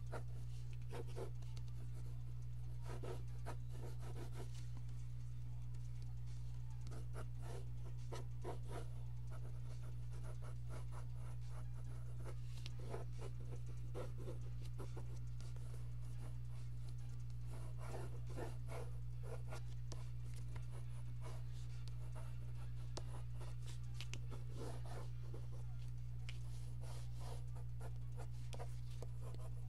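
Pencil scratching across paper in bursts of quick sketching strokes, with pauses between, over a steady low electrical hum.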